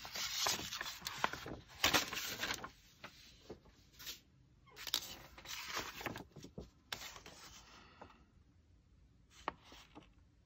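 Paper and craft materials being handled on a tabletop: irregular rustling and scraping with small taps, dying away after about eight seconds, followed by a couple of faint clicks.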